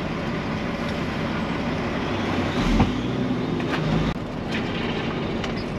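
Heavy diesel truck engine running steadily, with a single thump a little under three seconds in.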